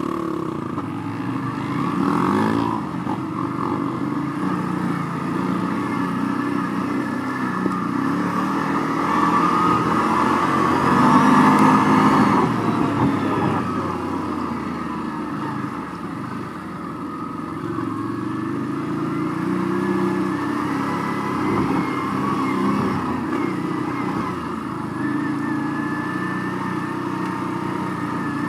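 Pit bike engine heard from on board, revving up and falling back again and again as the bike rides along a rough dirt trail, loudest about eleven seconds in.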